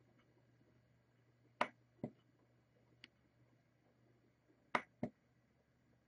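Push-button switch of a small rotary encoder knob being pressed and released: two pairs of sharp clicks, the first pair about a second and a half in and the second near the end, with one faint click between them.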